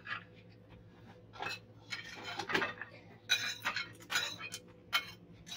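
Knife and fork scraping and clinking against plates as meat is cut and food eaten, in short irregular clicks and scrapes that grow busier about halfway through.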